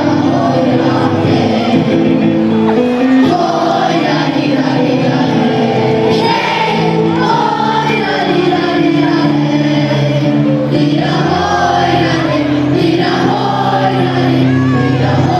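A school choir singing together over a steady instrumental backing.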